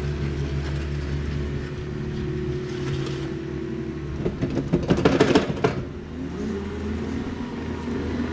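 Diesel engine of a compact construction machine running steadily, with a burst of clanking and rattling about four to six seconds in, then the engine revving up.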